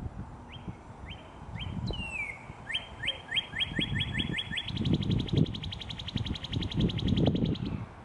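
Northern cardinal singing: a few separate whistles that slide down in pitch, then a quickening run of slurred notes, breaking about halfway through into a rapid trill that holds until near the end. A low, uneven rumble runs underneath.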